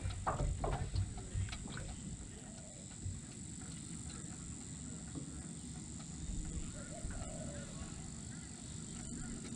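A few sharp knocks and clunks on an aluminium dinghy in the first second or so. After that, a steady low rumble of wind and water with a few faint, short squeaks.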